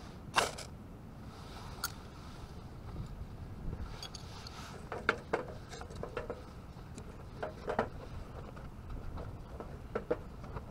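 A ferrocerium rod scraped hard once about half a second in, throwing sparks onto fatwood shavings, followed by scattered light clicks and knocks as split kindling sticks are set against the metal fire box.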